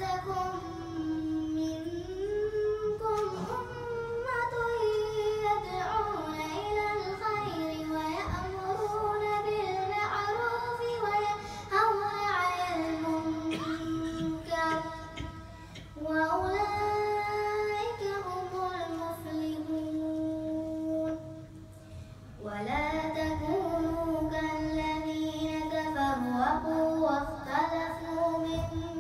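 An eight-year-old girl's voice reciting the Quran in melodic chant, with long held notes and ornamented turns of pitch. There is a short pause about two-thirds of the way through, and then the recitation goes on.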